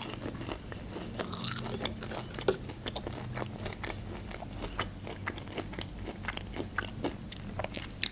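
Close-miked chewing and biting of a breaded McDonald's chicken nugget: a run of small wet crackling clicks, with a sharper crunch of a bite near the end.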